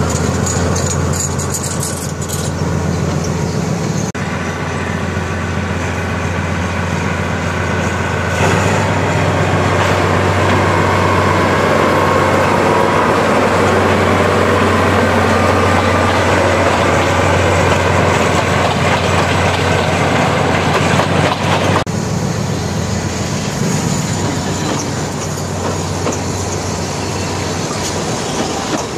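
BDŽ class 77 narrow-gauge diesel-hydraulic locomotive running with a steady low engine drone as the train moves past, mixed with rolling noise from the coaches. The sound changes abruptly twice, about 8 s and 22 s in.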